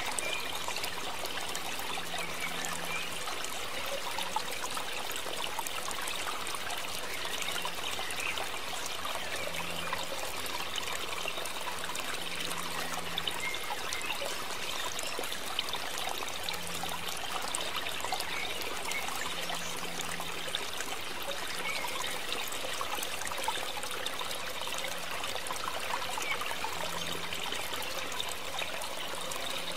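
Steady trickling of running water, unchanging throughout.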